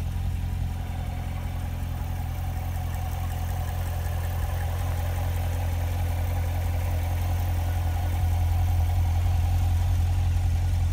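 The 2016 Corvette Stingray's 6.2-litre V8 idling steadily with the hood open. It gets a little louder about eight seconds in.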